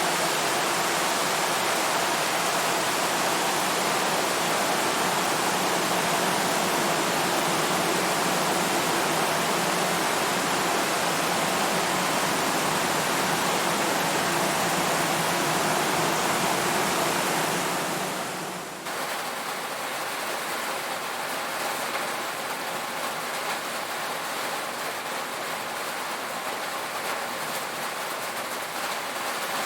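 Heavy rain on a tin roof, a dense steady hiss. About two-thirds of the way through it dips briefly and gives way to slightly lighter rain with more separate drops pattering on the metal.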